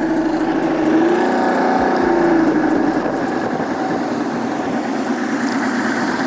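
Bass boat's outboard motor running steadily at low trolling speed, its pitch briefly rising and falling back between one and two and a half seconds in.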